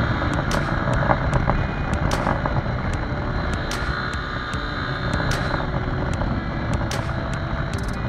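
Yamaha XTZ Ténéré 250 single-cylinder motorcycle running steadily at road speed, its engine mixed with a dense rush of wind on the camera microphone. Sharp clicks come now and then.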